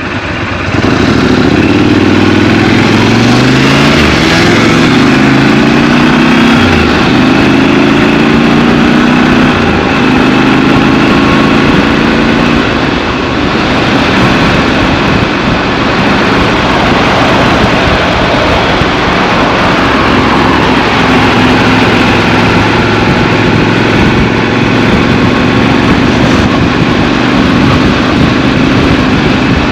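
Triumph Scrambler 1200 XC's parallel-twin engine pulling away and rising in revs through several gear changes in the first ten seconds or so, then running steadier at lower revs.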